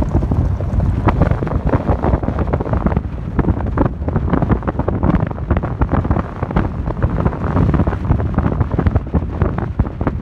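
Heavy wind buffeting the microphone of a Toyota 4Runner driving a gravel road, over a low rumble of tyres on gravel with many small sharp crackles.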